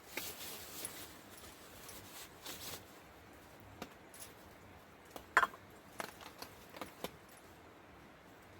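Small metal camping gear being handled: scattered light clicks and clinks with some rustling, the sharpest click about five and a half seconds in.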